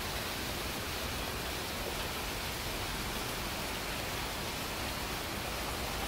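Steady rain: an even, unbroken hiss of falling rain with no single drops or changes standing out.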